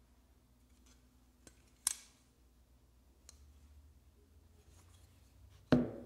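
A sharp click from a CJRB 1928 folding knife's blade action about two seconds in, with a couple of fainter clicks. Near the end comes a louder knock as a knife is set down on a hard surface.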